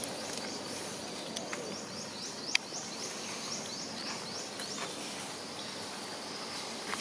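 Outdoor ambience with a rapid series of about ten short high chirps, which start about a second and a half in and run for about three seconds. There is one sharp click partway through.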